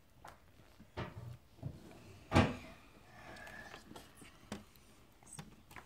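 A few light knocks and clicks in a quiet small room, the loudest about two and a half seconds in.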